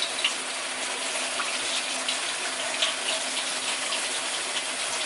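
Kitchen faucet running steadily onto strawberries in a plastic clamshell container held under the stream, the water splashing through the container into a stainless-steel sink.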